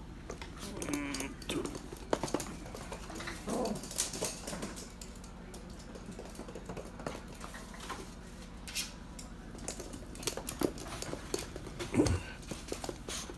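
Toy poodles' claws clicking irregularly on a hard laminate floor as they scamper and play over a stuffed toy, with a few short dog grunts or whines in the first few seconds.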